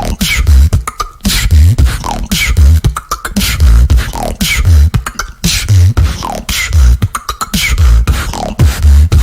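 Human beatboxing: deep bass kicks in a steady beat, about one every 0.8 seconds, with sharp snare-like clicks and quick falling-pitch sweeps between them.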